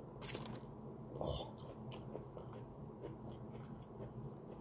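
A person biting into a whole pickled jalapeño and chewing it: two short bites about a second apart near the start, then faint chewing.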